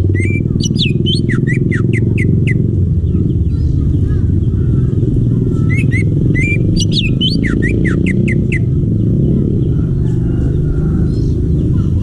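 Green leafbird (cucak ijo) singing two fast bursts of quick whistled notes sliding up and down, the second starting about six seconds in. Under the song runs a steady low rumble like an engine running, louder than the bird.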